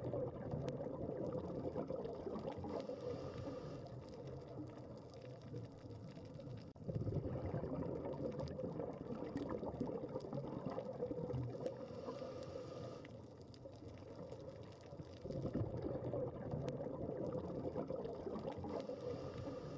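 Underwater sound of a scuba diver breathing: exhaled bubbles gurgling out in swells about every eight seconds, with a short hiss from the regulator between them. A few faint single clicks sound over it.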